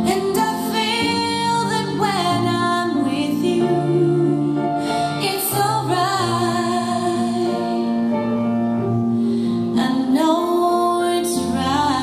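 A recorded song with a woman singing long, held notes over instrumental accompaniment.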